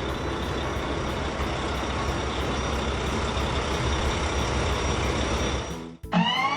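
A cartoon truck's engine runs as a steady, even rumbling noise, then cuts off suddenly near the end. A short bouncy music cue of rising notes comes in after it.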